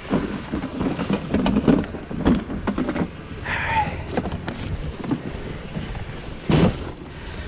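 Objects being handled and moved: irregular knocks, clatter and rustling, a brief squeak about halfway and one louder thump near the end.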